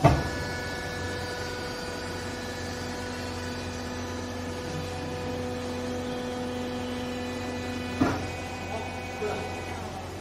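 Hydraulic pump and electric motor of a vertical clothing baler running with a steady hum while the ram presses a load of used clothes down. A sharp clank comes at the start and another about eight seconds in, where the hum's tone changes.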